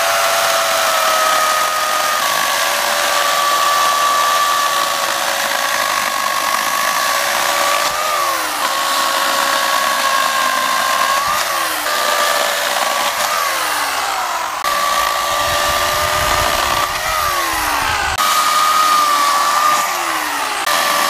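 Craftsman CMECS600 12-amp electric chainsaw with a 16-inch bar and chain, cutting through a log. Its motor gives a steady high whine that sags in pitch several times as the chain bites into the wood, then picks back up.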